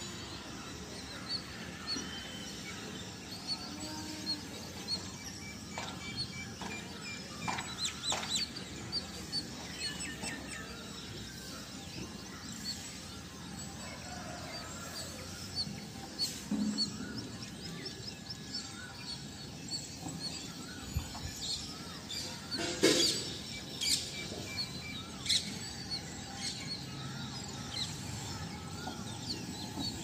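Birds chirping and calling outdoors: many short, high chirps scattered throughout, with one louder sharp sound about three-quarters of the way through.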